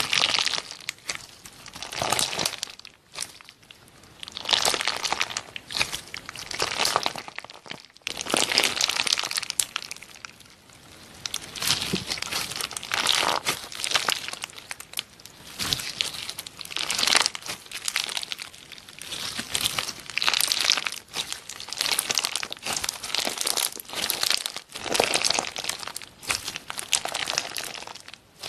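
Clear slime full of crunchy clear chunks being squeezed and stretched by hand, giving dense crackling, crinkling pops. The pops come in repeated waves a second or two long, one with each press.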